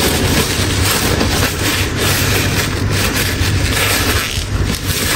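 Paper kitchen towel rustling and crumpling in the hands as raw chicken pieces are patted dry, over a steady background noise with a low hum.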